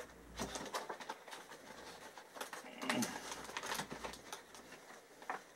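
Faint paper and plastic handling: a paper insert rustling as it is slid into the clear sleeve of a plastic DVD case, with scattered light clicks and scrapes.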